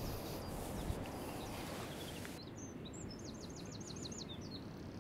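Wind rumbling and hissing on the microphone. A little past halfway a small songbird gives a quick run of about ten high, falling chirps.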